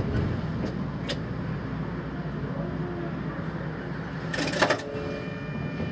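Steady low hum of a tram, standing or barely moving, with a few faint clicks in the first second and a brief louder noise about four and a half seconds in.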